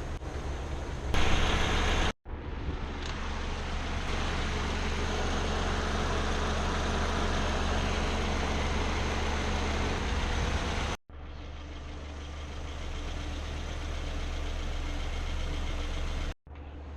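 Nissan Sentra 1.8-litre four-cylinder engine idling steadily, heard in a few short clips joined by abrupt cuts.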